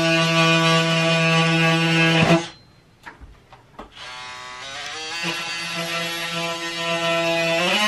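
Cordless drywall cut-out tool running at a steady, high buzzing whine while cutting a circle in ceiling drywall for a recessed light. It stops about two and a half seconds in; a couple of light knocks follow. It starts again around five seconds in and rises slightly in pitch near the end.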